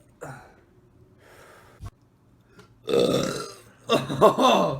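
Loud belching: two long burps close together, about three and four seconds in, the second with a wavering pitch, and a short, quieter burp just after the start.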